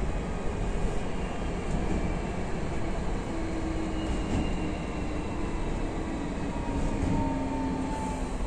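Hankyu electric train running on the rails with a steady rumble. Faint thin whines slide slowly down in pitch through it, as the train slows.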